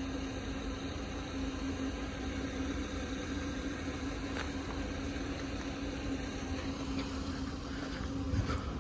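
Road vehicles idling, a steady low hum with an even tone and a low rumble, with a few faint clicks in the second half.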